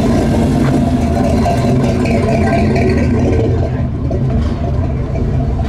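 A car engine running steadily.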